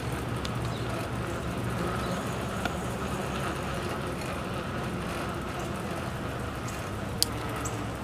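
Steady rumble and hum of a bicycle rolling along a paved trail, with a few light clicks and rattles, the sharpest about seven seconds in.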